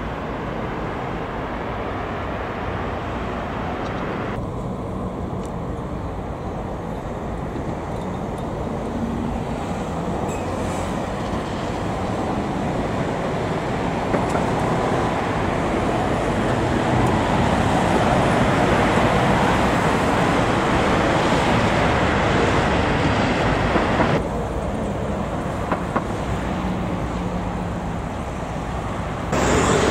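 Tram running along the track: a steady rumbling noise that builds in the middle and drops off abruptly near the end.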